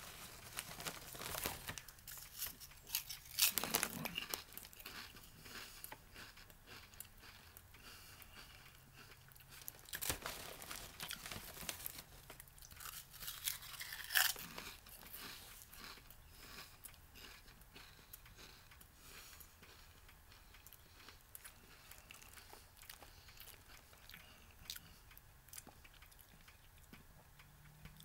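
A person crunching and chewing hot and spicy potato chips, with the loudest crunches in the first half and fainter chewing after.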